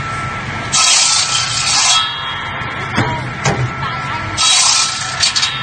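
Ice-block cutting machine with six blades: its motor hums steadily while the blades cut through ice in two loud noisy bursts of about a second each, with a few sharp knocks between and after.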